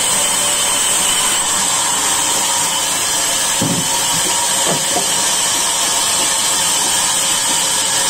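Sawmill band saw running steadily with a high whine and hiss while a log is fed through the blade.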